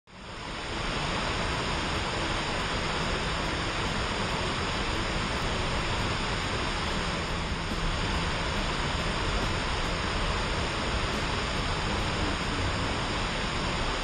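Waterfall: a curtain of water pouring off a ledge, making a steady, even rush that fades in over about the first second.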